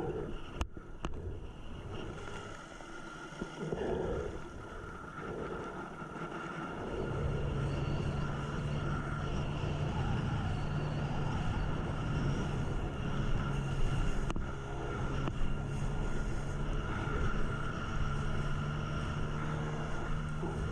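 Small outboard motor running steadily at a constant pitch, coming in about seven seconds in after a few clicks and knocks.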